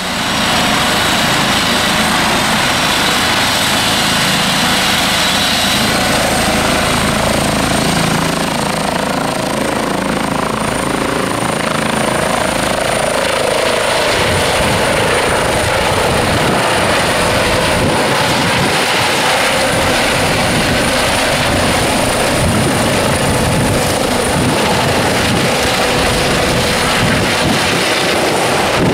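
Airbus H135 helicopter lifting off and climbing away: its twin turbine engines and rotors run loud and steady, with a high whine that rises in pitch over the first ten seconds or so, then holds.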